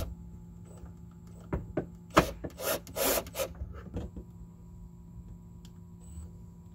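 Cordless driver running coarse-thread screws up into the underside of the boat's helm in several short bursts, the threads grinding and scraping as they bite, mostly in the first four seconds or so. A sharp click right at the start.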